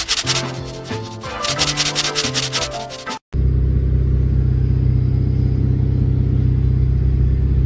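Music with a quick, steady beat for about three seconds, cutting off abruptly, then a loud, steady low rumble inside a car.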